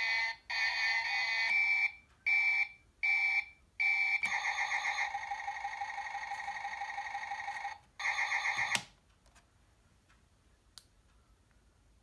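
Battery-powered 1997 Getty toy tanker truck playing its electronic horn and motor sound effects: two longer tones, four short beeps, then a steady pulsing sound for about three and a half seconds and one more short burst, stopping about nine seconds in.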